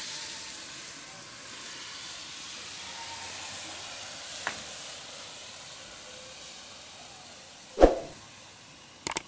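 Shredded cabbage sizzling in hot oil and masala in a kadhai, a steady hiss that slowly dies down. A single sharp knock near the end, the loudest sound.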